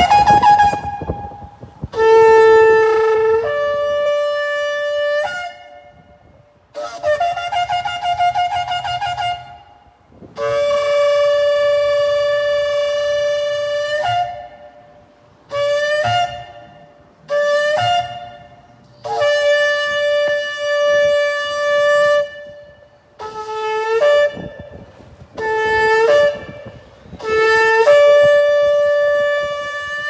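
A long spiral Yemenite-style shofar is blown in a series of about ten blasts, some short and some held for several seconds. Several blasts start on a lower note and jump up a step. One blast a third of the way in has a wavering, warbling pitch.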